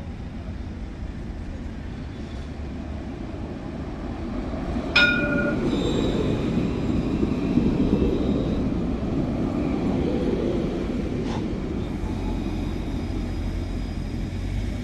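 Alstom Citadis tram running on its rails, a steady low rumble that grows louder about four seconds in. Near five seconds comes a single sharp knock with a brief ringing tone, followed by a thin high tone lasting a couple of seconds.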